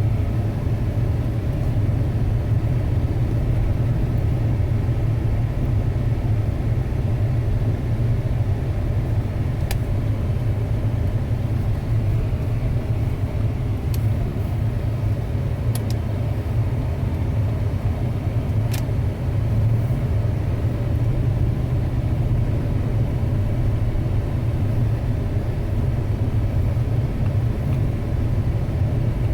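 Steady low rumble of a 2006 Ford Expedition on the move, with a few faint sharp ticks scattered through it.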